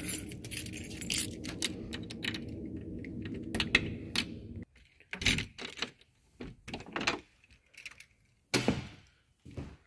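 A round metal door knob rattling and clicking as it is turned, then a wooden door knocking against its frame as it is pulled open. A steady low hum runs underneath for the first half and cuts off suddenly.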